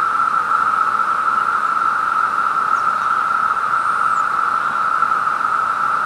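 A dense chorus of periodical cicadas: one steady, unbroken, high droning whine, almost deafening.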